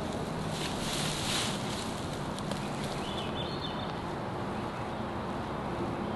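Outdoor forest ambience: a wash of wind noise over a steady low hum, the hiss swelling briefly about a second in.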